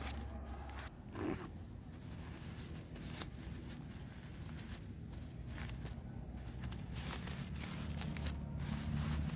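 Crinkly rustling of a thin ultralight tarp being pulled out of its drawcord stuff sack by hand, in many short, irregular crackles. A low steady hum runs underneath and grows louder near the end.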